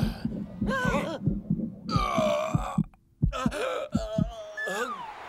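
Dramatic cartoon slow-motion sound effects: a heartbeat-like thudding, a couple of beats a second, under drawn-out, wavering groan-like voices that slide in pitch. Everything drops out briefly about three seconds in.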